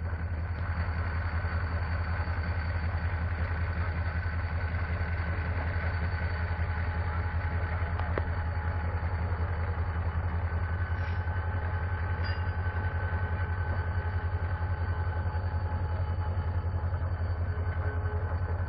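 Diesel locomotive engine idling: a steady low rumble with a faint, even whine above it.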